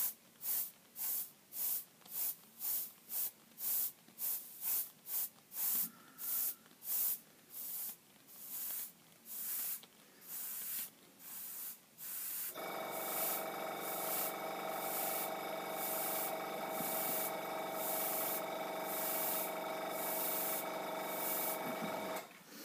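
Airbrush spraying paint in short hissing bursts, about two a second, as the trigger is pulsed on and off; the bursts spread out a little after the first few seconds. About halfway through, a small air compressor starts running with a steady hum, under the continuing bursts, and cuts off just before the end.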